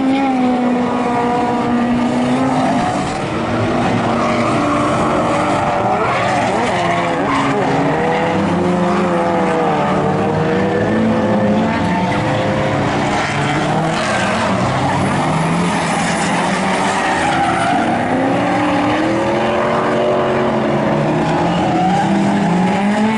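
Several drift cars' engines revving hard and easing off, their overlapping pitches rising and falling as the cars slide through a corner together, over the squeal of tyres skidding sideways.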